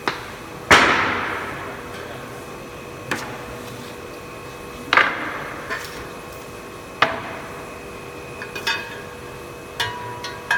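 Sharp metallic clanks, like hammer blows, at uneven intervals. The loudest comes early and rings on for about a second. They sound over a steady machine hum.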